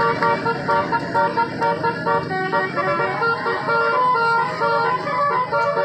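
Telolet horns on a mini tourist train playing a quick tune of short stepping notes in a pulsing rhythm, with the train's engine running underneath.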